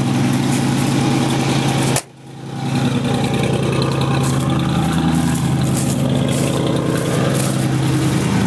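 1979 Ford Bronco's V8 engine idling steadily. The sound drops away sharply about two seconds in, then swells back within a second.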